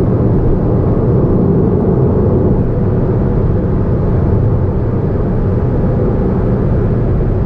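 Steady engine and road noise inside the cabin of a Honda S660 being driven, its mid-mounted 658 cc turbocharged three-cylinder running evenly with no change in pace.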